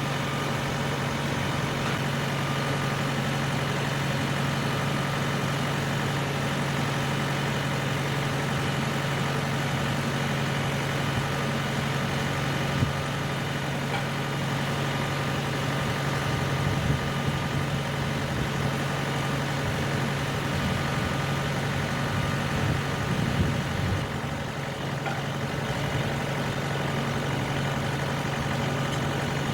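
Tractor engine running steadily at an even speed, with a few brief knocks along the way.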